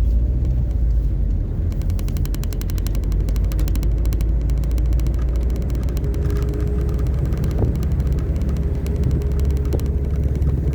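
A car driving, heard from inside the cabin: a steady low rumble of engine and road noise. A fast run of faint ticks starts about two seconds in.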